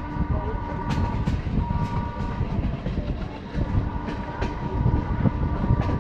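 WDM-2 diesel-electric locomotive, with its turbocharged 16-cylinder ALCO 251 engine, chugging under load as it pulls a passenger train, a heavy pulsing rumble with a thin steady whine above it. Sharp clicks now and then, typical of wheels crossing rail joints.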